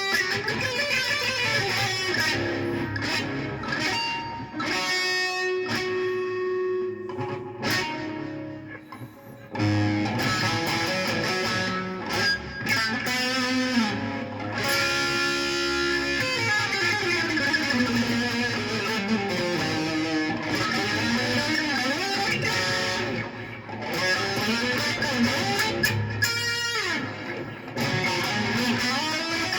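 Plucked stringed instrument with a guitar-like sound, played as loose solo practice: sliding notes and ringing harmonics, with a short quieter gap about eight seconds in.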